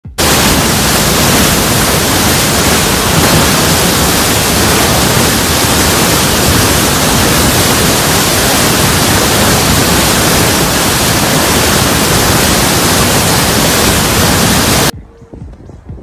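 Loud, steady roar of a river in flood, churning muddy water rushing and crashing, cutting off suddenly about a second before the end.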